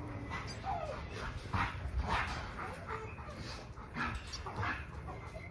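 Kennelled American bully dogs whining and yipping, several short calls, one a falling whine about a second in.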